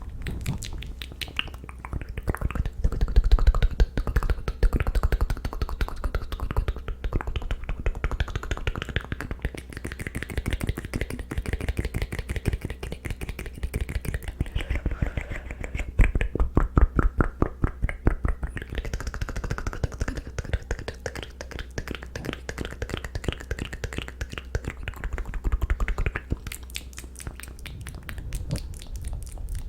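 ASMR mouth sounds: a rapid, unbroken stream of tongue clicks and lip smacks, denser and louder in a few stretches, over a steady low hum.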